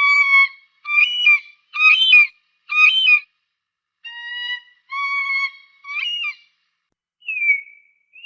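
Falcon calling: a series of about eight pitched cries, each about half a second long and roughly one a second, with a short pause about four seconds in; some cries bend up in pitch at the middle.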